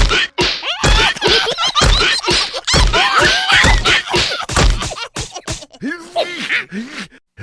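Cartoon soundtrack: a high-pitched animated character voice making wordless sounds while heavy thumps land about once a second, then a lower, drawn-out voice near the end.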